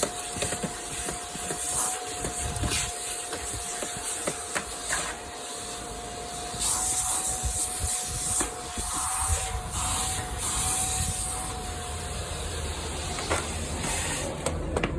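Vacuum cleaner running with a steady whine and rushing air as its nozzle is scraped and rubbed over the car's front floor, with scattered small clicks and knocks. The motor's whine drops out near the end.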